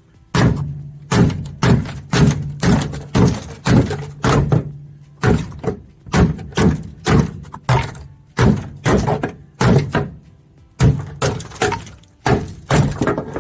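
Repeated hammer blows on the thin sheet metal of a 1987 Suzuki Samurai's body, about two a second with a few short pauses, knocking the hard undercoating loose. Each strike rings briefly.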